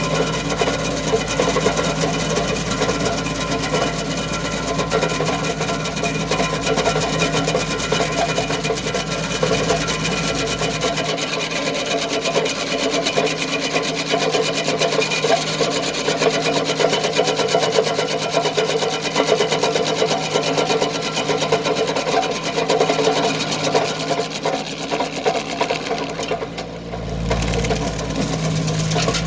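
Tractor-driven stump grinder's cutter wheel grinding into a wooden stump, a steady rasping over the compact tractor's engine running under load. The grinding eases off briefly near the end.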